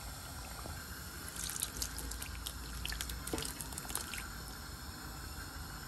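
Saucy chicken korma being transferred from the pan onto boiled rice: a couple of seconds of small clinks and wet drips and plops, starting about a second and a half in and dying away by about four seconds.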